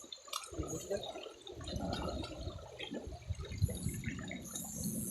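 River water sloshing and splashing close to the microphone, with scattered small drips and clicks, louder from about a second and a half in.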